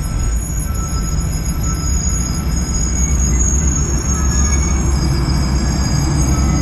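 Passenger cars of Union Pacific's Office Car Special train rolling past: a continuous low rumble of steel wheels on rail that grows a little louder partway through, with thin, high, steady squealing tones above it.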